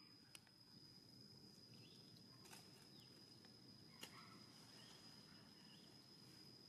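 Near silence: faint outdoor ambience with a steady thin high-pitched tone, a few faint clicks and some faint chirps.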